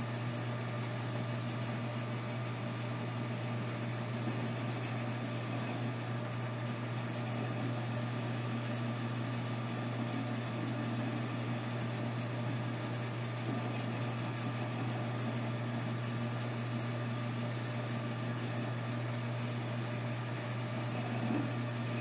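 Metal lathe running with a steady hum while the tool rough-turns a taper on an O1 tool steel shaft.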